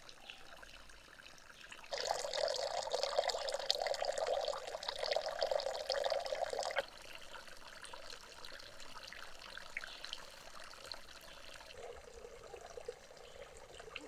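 Water pouring and trickling into a small pond. A much louder rush of pouring water starts suddenly about two seconds in and cuts off abruptly about five seconds later, leaving a quieter steady trickle.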